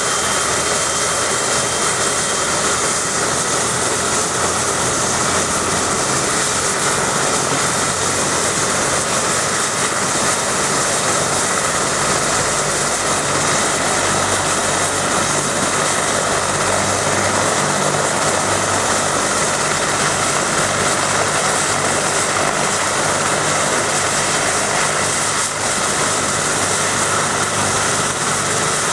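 Eurocopter BK 117 rescue helicopter running on the ground before takeoff: twin turbine engines giving a steady high whine and rush, with the rotors turning.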